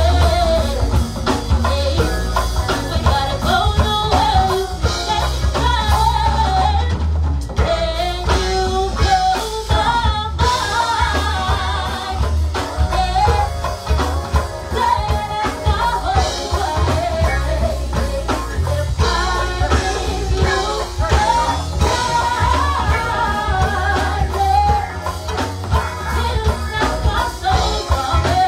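Live go-go band playing: a woman sings lead over a heavy bass line, drum kit and congas. There is a short break in the groove about seven seconds in.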